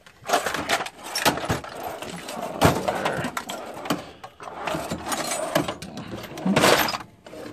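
Metal hand tools clinking and clattering as they are rummaged through, an irregular run of sharp knocks and rattles.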